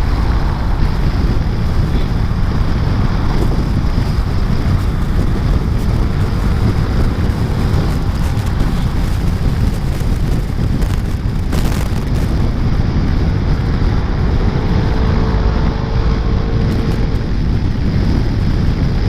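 Motor scooter ride with heavy wind buffeting on the microphone, a loud, steady low rumble. The scooter's engine and traffic noise sit underneath, with a faint engine whine that rises slightly near the end.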